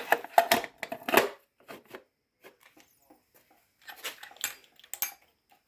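Small metal parts and screws being handled on a workbench: a quick run of clicks and rattles at the start, scattered single clicks, then another cluster of clicks about four seconds in.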